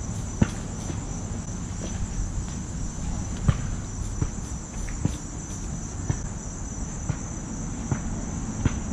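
Steady high-pitched insect chorus that keeps going without a break, with a dozen or so short sharp clicks at irregular moments.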